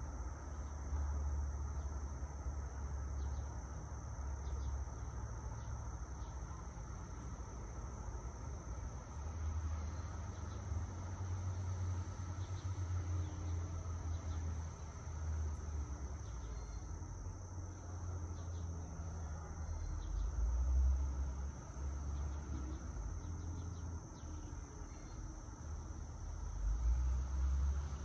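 A steady, high-pitched insect chorus drones on without a break. Underneath runs a low, uneven rumble of wind and light traffic that swells about two-thirds of the way through and again near the end.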